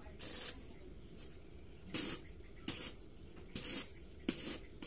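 Electric arc welding on a steel floor track: five short spells of hiss, each under half a second, as the welder lays quick tack welds.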